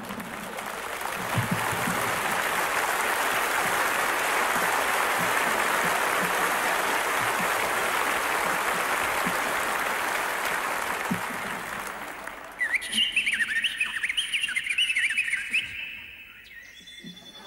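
Audience applauding steadily for about twelve seconds; then, about twelve seconds in, a burst of rapid bird-like warbling whistles for about three seconds.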